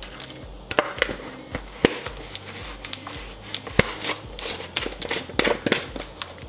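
Irregular light clicks and taps of plastic bouillon jars and a spoon being handled and set down, a few per second, over a faint low steady hum.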